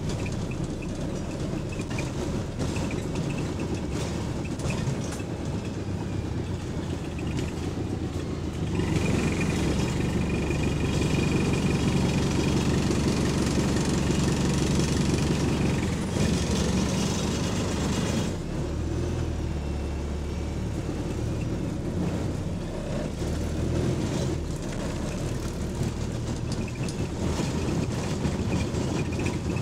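Bus engine running and road noise heard from inside the cabin, with interior parts rattling to the engine. It gets louder for about nine seconds in the middle, then settles back.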